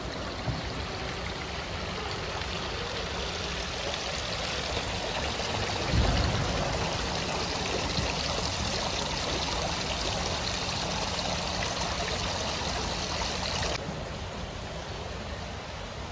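A steady rushing noise, like running water, with a single low thump about six seconds in; the higher part of the hiss cuts off suddenly near the end.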